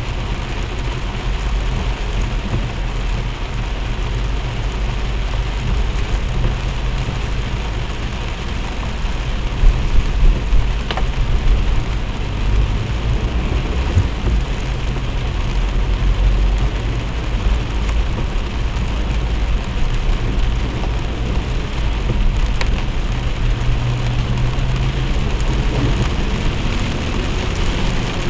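Heavy rain falling steadily, over a constant low rumble of vehicle engines. There are a few louder knocks about ten seconds in.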